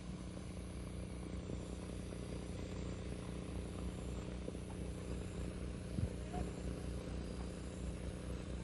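Multirotor crop-spraying drone's propellers humming steadily with an even, unchanging pitch.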